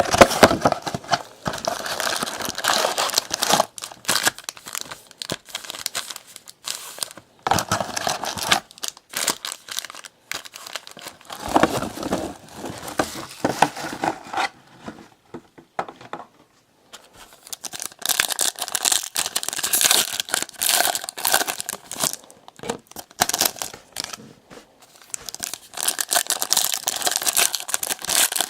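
Trading-card pack wrappers being torn open and crinkled by hand, in irregular bursts of crackling with a short lull about halfway through.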